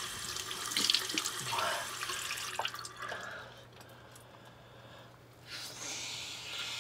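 Tap water running into a bathroom sink, with a few splashes, fading out about three seconds in; a short breathy rush comes near the end.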